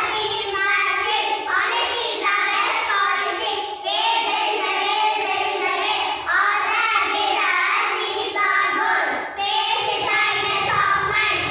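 A small group of young girls singing together in unison, with short breaths between phrases.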